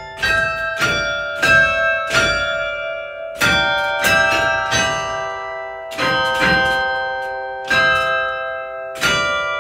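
Church tower bells of a hand-played chime ringing a slow tune, one bell struck at a time, each note ringing on and fading under the next.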